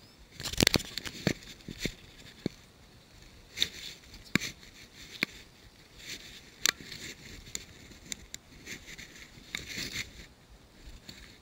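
Handling noise: scattered sharp clicks and taps with light rustling, heard while a small bass is handled and released and fly line and rod are worked by hand.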